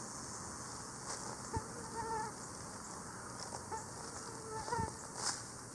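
Insects buzzing close by, a mosquito or fly whining around the microphone, over a steady high outdoor insect hiss, with a couple of short faint chirps and soft knocks.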